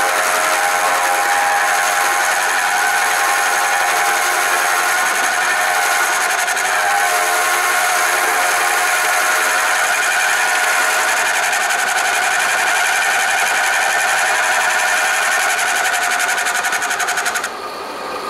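Milling machine's large end mill cutting a shallow bevel into the end of a heavy-wall aluminum tube: a steady, loud, high-pitched cutting noise with a fast buzzing edge. Near the end the cutting noise drops off sharply.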